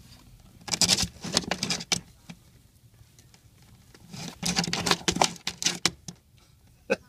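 A hen scratching and shuffling in wood shavings inside a cardboard box, making a nest: two bouts of quick, scratchy rustling, each about a second and a half long.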